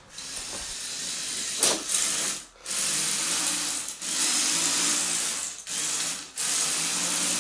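LEGO Technic RC Tracked Racer (42065) driving: its electric motors and plastic gears whir and its tracks clatter. It goes in several runs of a second or two with short pauses between them.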